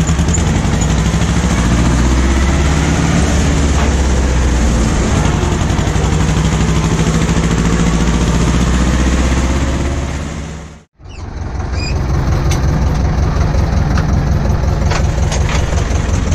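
Ursus C-330M tractor's two-cylinder diesel engine running steadily. About eleven seconds in, the sound fades out to silence for a moment, then comes back.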